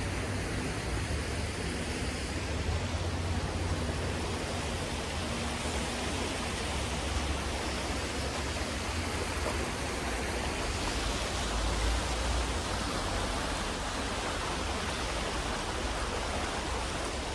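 Fast-flowing river water rushing and churning: a steady hiss with a low rumble underneath.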